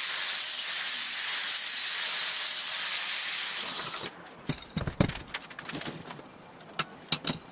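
Angle grinder cutting slots into 1.5-inch steel square tubing: a steady, hissing grind that stops abruptly about four seconds in. It is followed by several sharp metal clanks and knocks as the slotted steel tube is handled and set down on the steel workbench.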